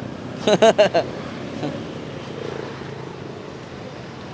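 Steady hum of a busy street market with traffic behind it, broken about half a second in by four quick, loud pitched cries close by that bend up and down in pitch.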